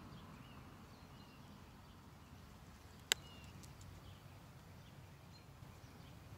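Faint outdoor ambience: small birds chirping now and then over a low, steady rumble, with one sharp click about three seconds in.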